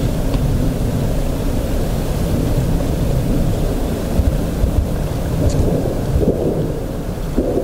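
Loud, steady low rumbling noise with no clear source, with a couple of faint ticks and a few soft knocks in the second half.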